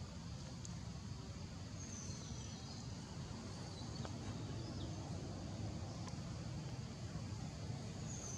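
Steady low outdoor background rumble, with faint high-pitched bird calls that slide downward about two seconds in and again near the end.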